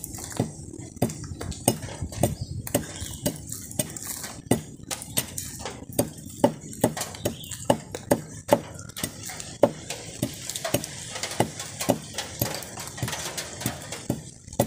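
A hand-held hooked blade chopping repeatedly into a wooden handle fitted on a blade's tang, trimming it to shape: sharp woody knocks, about two to three strokes a second.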